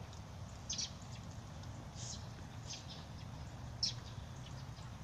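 Short, high bird chirps, four or five spaced irregularly, over a steady low rumble.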